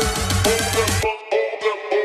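Electronic dance music backing track: a steady beat with heavy bass that drops out about halfway through, leaving a sparser breakdown.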